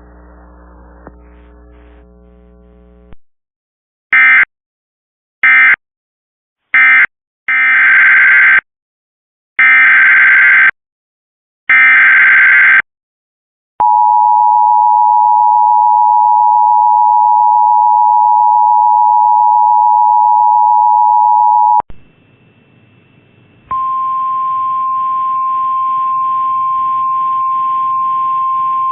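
Emergency Alert System tones. Three short bursts of digital data tones (typical of the end-of-message code) are followed by three longer data bursts (typical of the SAME header that opens the next alert). Then the two-tone attention signal sounds steady for about eight seconds, and a little after it ends a single steady tone starts over a static hiss.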